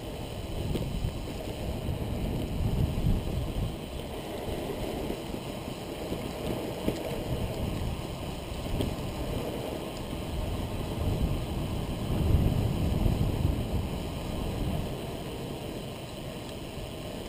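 Wind noise buffeting the microphone of a camera mounted on a moving recumbent trike, over the rolling noise of the trike's tyres on asphalt; the buffeting swells and eases, loudest about twelve seconds in.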